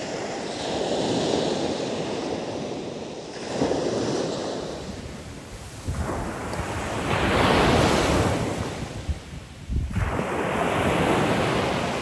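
Black Sea surf breaking and washing up a sandy beach, swelling and falling back several times, with wind buffeting the microphone.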